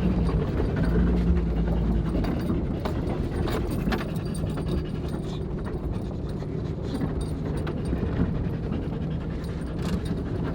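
A dog panting inside a Jeep's cabin, over the steady drone of the engine and scattered knocks and rattles from the rough trail.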